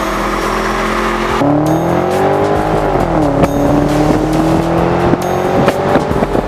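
Straight-piped BMW 650i's 4.8-litre V8 exhaust under hard acceleration. The pitch climbs, drops sharply about halfway through at a gear change, then climbs again.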